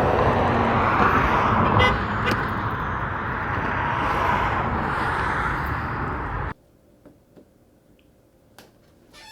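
Steady road traffic noise that cuts off abruptly about six and a half seconds in.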